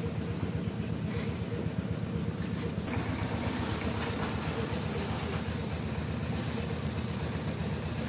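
Engine of construction equipment at a concrete pour running steadily, with a hissier layer of noise joining about three seconds in.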